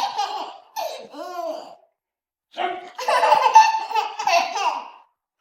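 A person laughing heartily in two long fits, with a short sliding vocal sound and a pause between them; the second fit starts about two and a half seconds in.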